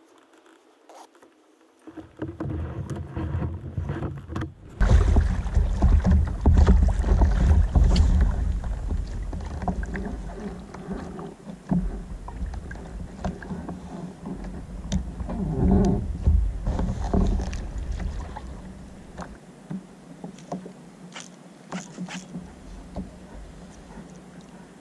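Handling noise from a sit-on-top fishing kayak as the angler casts and works a squid jig: a low rumble that is loudest about 5 to 10 seconds in and fades in the last few seconds, with scattered light clicks and knocks of rod and reel.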